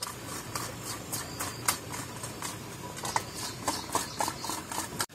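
Short, irregular scraping strokes from hand work in the kitchen, a few each second.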